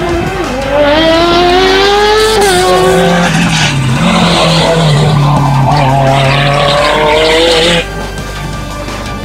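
Hill-climb race car's engine at full throttle, rising in pitch, with a break for a gear change about two and a half seconds in before it climbs again. It cuts off abruptly near the end, leaving quieter music.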